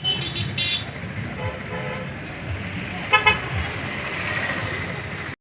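Road traffic with vehicle horns tooting: short toots near the start and a louder double toot a little after three seconds in.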